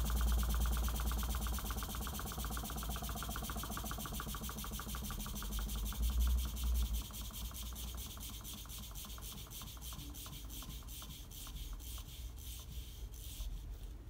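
Homemade Stirling engine driving a mini alternator, running with a rapid, even clicking from its mechanism that gradually gets slower and quieter.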